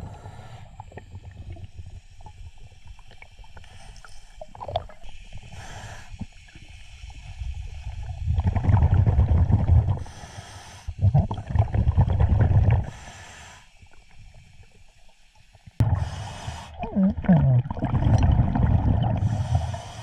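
Scuba diver breathing through a regulator underwater: a short hiss with each inhale, then a loud bubbling rumble as each exhale vents, repeating a few times.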